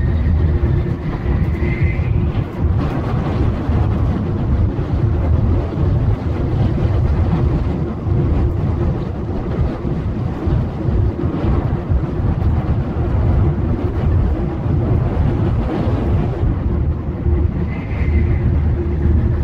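Running noise inside a Shinkansen bullet-train carriage at speed: a steady low rumble with a constant hum.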